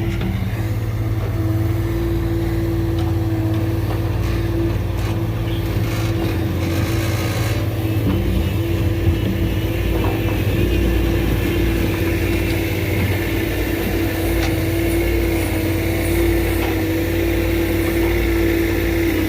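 Diesel engines of compact earthmoving machines, a Bobcat skid steer and a Kubota mini excavator, running steadily at work while backfilling a trench, with a single brief knock about nine seconds in.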